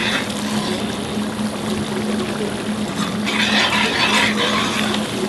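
Chopped onions and peppers sizzling as they brown in a black pot, stirred with a long metal spoon. The sizzle swells louder for about a second just past halfway, over a steady low hum.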